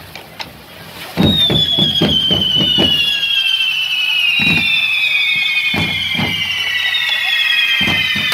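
Correfoc spark fountains (carretilles) burning on the devils' fire forks, several shrill whistles sounding together from about a second in and sliding slowly down in pitch. Sharp firecracker cracks go off through it.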